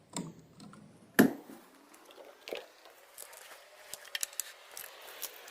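Scattered clicks and light taps of hand work on an electrical outlet and its wires, with one sharper knock about a second in and a run of small ticks near the end.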